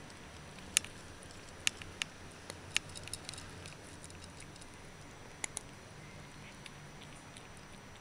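A cat eating dry kibble from a bowl: scattered sharp crunches and clicks, most of them in the first three seconds and a close pair about five and a half seconds in, with fainter chewing ticks between.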